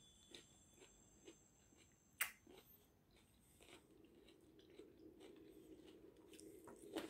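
Faint chewing of mango with shrimp paste, with small mouth clicks and one sharp click about two seconds in as a small plastic container is handled.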